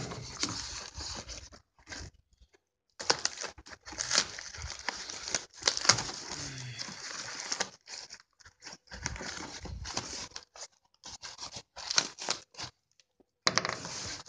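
Packaging being torn and ripped apart by hand, with rustling and crinkling in irregular bursts and a couple of brief pauses.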